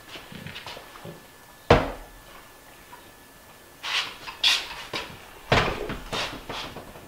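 Wooden knocks and clunks from a cabinet frame being handled and shifted. There is one sharp thump a little under two seconds in, then two clusters of quicker knocks near the end.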